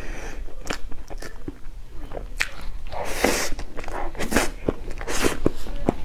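Close-miked eating: a person biting and chewing with many small wet clicks, and three louder crunchy bites in the second half.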